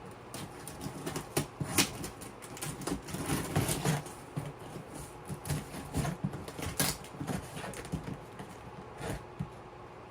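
Packaging being handled and rustled while a box is unpacked: irregular rustles, scrapes and small knocks, with sharper cracks about two seconds in and again near seven seconds.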